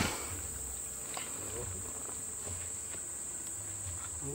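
Steady high-pitched drone of insects, with a few faint clicks and knocks over it.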